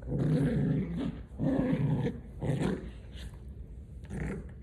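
Dog play-growling in four short, low, rough bouts, three close together and one near the end.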